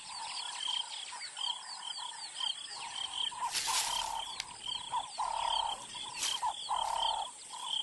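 Dusk wildlife chorus: a short, high chirping call repeats about three times a second over lower calls that swell twice in the second half, with a few sharp clicks.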